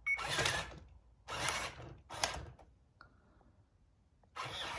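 Gear motors of an Ultimate Buzz Lightyear remote-control robot toy whirring as it moves, in three short bursts, then running more steadily near the end.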